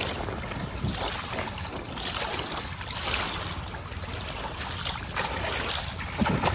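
Steady rushing noise of wind and water, swelling and easing, with a few faint knocks.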